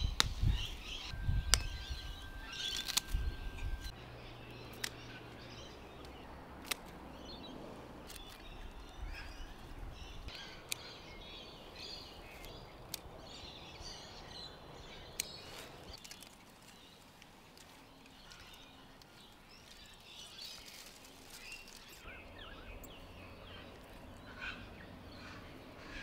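Outdoor garden ambience with small birds chirping and calling throughout, and a few knocks and thumps in the first few seconds.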